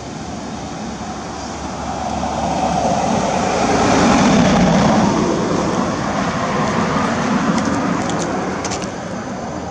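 A passing vehicle: steady traffic noise that swells to its loudest about four to five seconds in and then fades.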